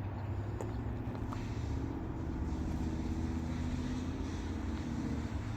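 A motor vehicle engine idling steadily, with a low hum that shifts slightly in pitch.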